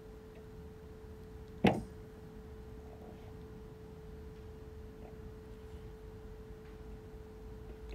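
A steady, faint hum held on one pitch, with a single sharp click just under two seconds in.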